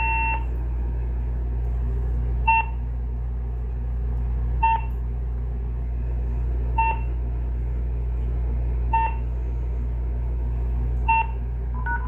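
Uniden EXAI7980 answering machine beeping: a half-second tone right after the greeting, then short single beeps about every two seconds, over a steady low hum. Near the end comes a brief two-note keypad tone.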